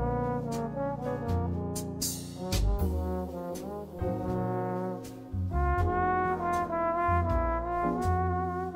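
Jazz background music led by a trombone playing a slow melody, with long notes held with vibrato in the second half.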